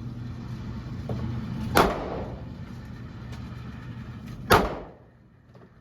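Two handgun shots about two and a half seconds apart, each sharp and loud with a short echoing tail.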